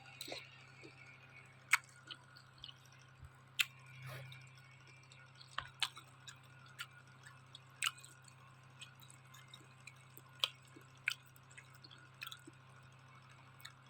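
Someone eating Mie Gacoan noodles: quiet chewing with scattered sharp, irregular smacks and clicks, about one every second or so. A faint steady low hum lies underneath.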